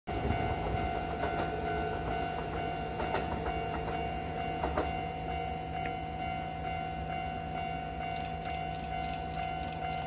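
A Japanese railway level-crossing alarm sounding with a steady ringing tone, over the low rumble of a train on the line. Wheel clicks sound over the first few seconds. Near the end a quick high beat of about three strokes a second joins in.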